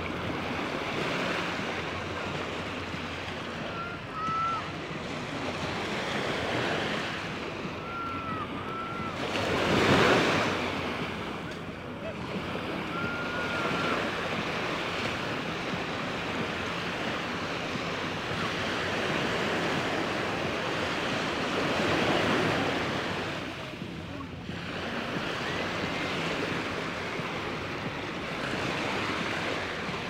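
Sea waves breaking and washing up a sandy beach, a steady hiss that swells and ebbs with each wave, the biggest surge about ten seconds in and another a little past twenty seconds. Wind buffets the microphone.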